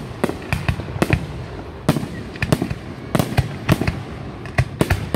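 Aerial firework shells bursting in a fast, irregular volley, about fifteen sharp bangs over five seconds.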